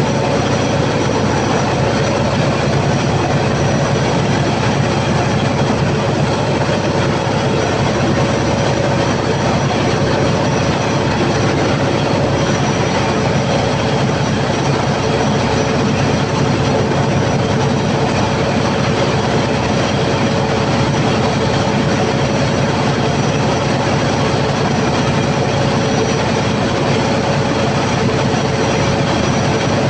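Cummins KTA50 sixteen-cylinder turbocharged diesel generator engine, freshly overhauled, running loud and steady at constant speed on its load test, with a steady hum on top of the engine noise.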